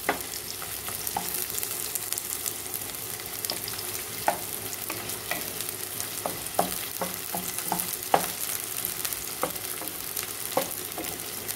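Sliced red onions sizzling in hot white cooking oil in a kadai, stirred with a wooden spatula that knocks and scrapes against the pan every second or so.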